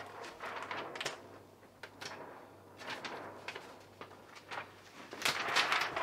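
Irregular rustling with short light knocks, the sound of someone handling things and moving about, loudest near the end.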